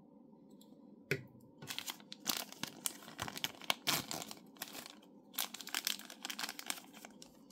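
Plastic packaging crinkled and torn open by hand, with irregular crackles and tearing starting about a second in.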